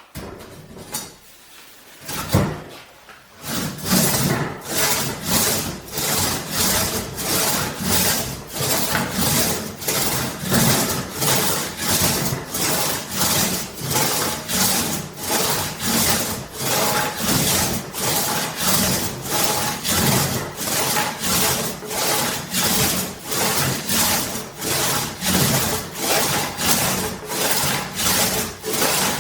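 Antique four-foot one-man crosscut saw, its blade freshly waxed, cutting through partially dried apple wood in steady rasping push-and-pull strokes, about two a second. Sawing settles in about four seconds in, after a single knock.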